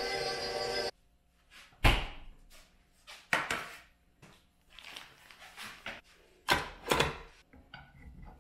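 Background music stops about a second in. A few separate sharp knocks and taps follow, from cookie dough being set onto a metal baking sheet and handled at a stand mixer's bowl and paddle.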